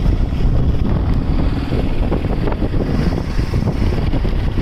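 Heavy wind buffeting the microphone over the low rumble of a moving motorcycle on a rough dirt road.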